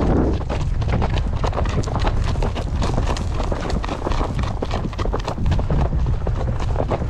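Horse's hooves clip-clopping along a trail in a run of short knocks, with a low wind rumble on the microphone.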